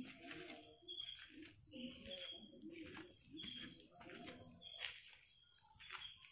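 Faint chorus of night insects, likely crickets: a steady high trill, with a shorter chirp repeating roughly once a second.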